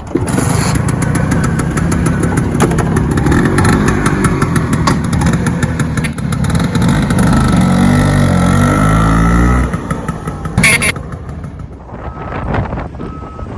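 A loud engine running, with a pulsing low pattern growing stronger in its later seconds. It drops away about ten seconds in, followed by a sharp knock and quieter background.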